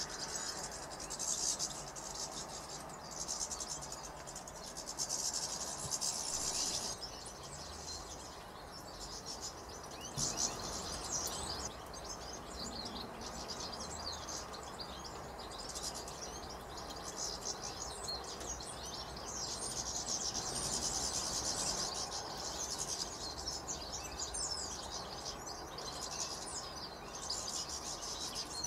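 A flock of European goldfinches twittering and chattering as they feed and squabble, a dense, high, tinkling chorus. It thins to scattered calls for a while in the middle, then swells again. A steady hiss of rain lies underneath.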